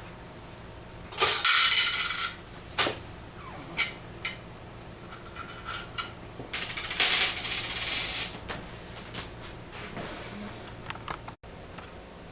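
Coins rattling through the coin mechanism of a Western Electric 236G three-slot payphone, in two jingling bursts about a second long: one about a second in, the other around six and a half seconds in. Sharp mechanical clicks fall between and after them.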